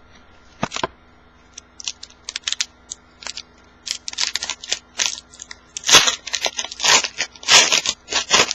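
A foil trading-card pack wrapper is torn open and crinkled by hand, in quick crackling bursts that grow louder and denser about six seconds in.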